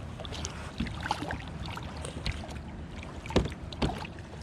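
Knocks, clicks and water sloshing on a kayak as a small hybrid striped bass is pulled to the boat, with a sharp knock about three and a half seconds in and another just before four. A low wind rumble runs under it.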